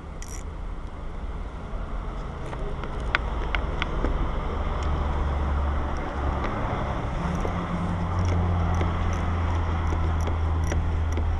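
Steady low hum of a vehicle engine running, growing a little louder about halfway through, with a few sharp metallic clicks and light ticking from a socket ratchet working a 10mm bolt.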